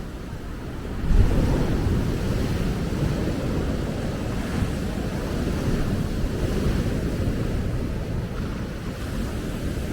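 Ocean surf breaking and washing onto a beach, with wind rumbling on the microphone. The sound swells suddenly about a second in and stays loud.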